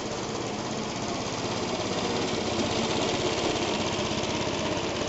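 Suffolk Colt cylinder lawn mower's small two-stroke engine running steadily as the mower is pushed past close by, growing louder towards the middle and easing slightly near the end.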